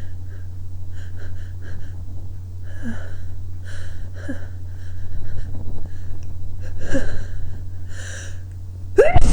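A person with a runny nose sniffing and drawing short gasping breaths, a second or two apart, some with a brief voiced catch, building up to a sneeze. A loud sneeze breaks out at the very end, over a steady low hum.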